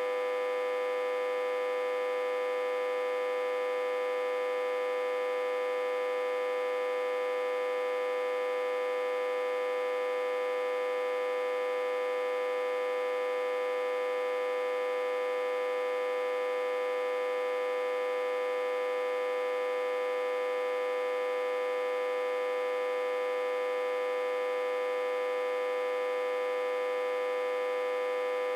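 Autotransformer humming a steady, unchanging tone with many overtones. The autotransformer is reverse-connected to a step-down transformer and fed about 60–80 V.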